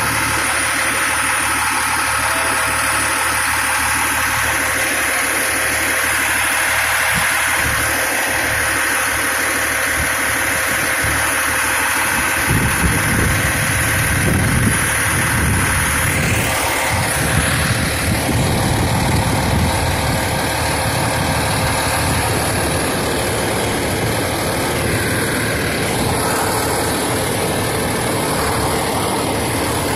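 Fire engine's diesel engine idling steadily close by; its low rumble grows stronger about twelve seconds in.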